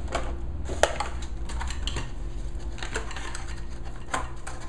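Plastic packaging being handled: scattered crinkles and light clicks, with a sharper click about a second in and another near the end, over a low steady hum.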